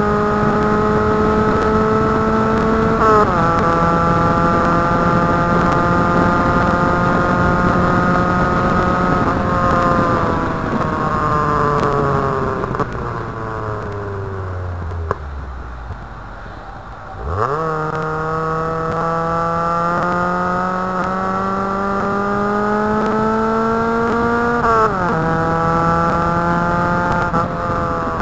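Nissan 100NX's four-cylinder engine heard from inside the car, driven hard on a track: it pulls and shifts up with a sudden drop in pitch about three seconds in, the revs sink away under braking through the middle, then climb sharply and steadily on the throttle, with more upshifts near the end. Road and wind noise run underneath.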